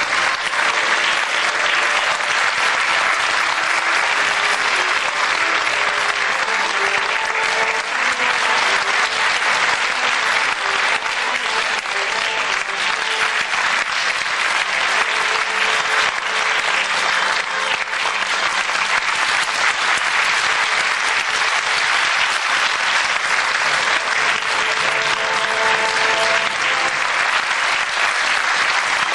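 Theatre audience applauding steadily for the cast's curtain call at the end of an operetta, with faint music under the clapping.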